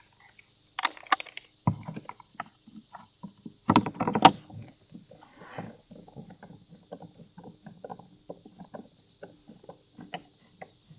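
Plastic mirror housing knocked and clicked into place against the hull of a Sea-Doo Spark, with the loudest knocks about a second and four seconds in. Lighter ticking and clicking follows as the mounting bolts are turned into the housing.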